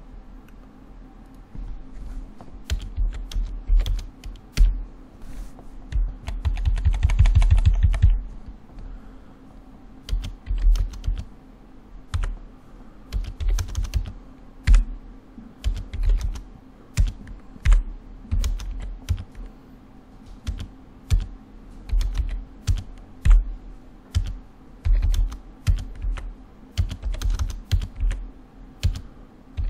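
Typing on a computer keyboard: irregular bursts of keystrokes, with a fast run of keys about six to eight seconds in.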